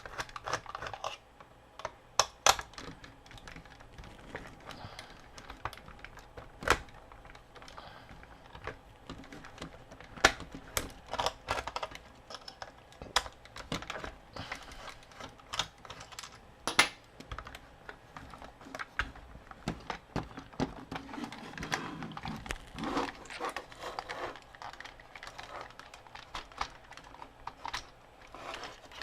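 Irregular clicks and taps of a hard plastic action figure's parts being handled and worked apart by hand, with a few sharper knocks now and then.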